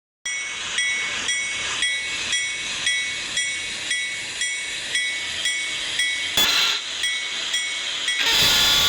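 Freight train passing, with a ringing metallic clang repeating evenly about twice a second. A louder rushing noise sets in near the end.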